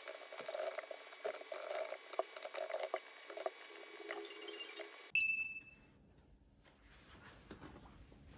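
Small clicks, taps and light clinks for about five seconds, then a single bright ding about five seconds in that rings out and fades.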